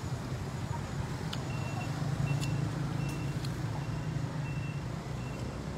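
A vehicle engine running steadily, with a faint reversing alarm giving short high beeps about every half to three-quarters of a second.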